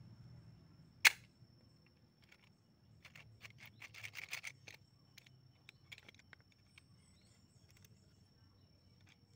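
Homemade rubber-band crossbow firing: one sharp snap about a second in as the metal trigger catch lets go of the drawn band and dowel. Then a run of small metallic clicks as the empty catch and trigger bolts are worked by hand.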